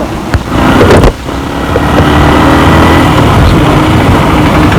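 Motorcycle engine running, with a sharp click and a brief loud surge in the first second, then a steady loud run from about two seconds in.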